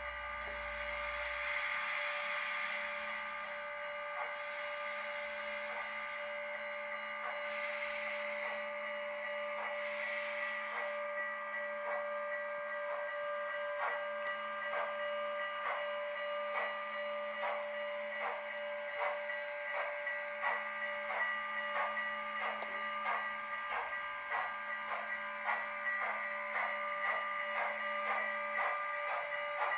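HO-scale model of Canadian National steam locomotive 6060 running on its ESU sound decoder, with a steady whine under it. About halfway through, rhythmic chuffs begin and come faster and faster as the locomotive picks up speed.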